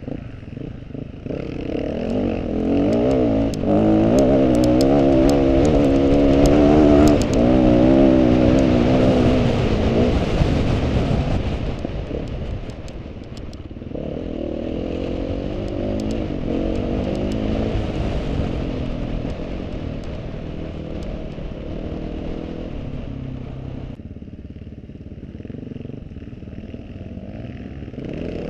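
Off-road motorcycle engine running under changing throttle while riding, its note rising and falling, loudest in the first half, with scattered clicks and rattles there. It then settles to a lower, steadier run.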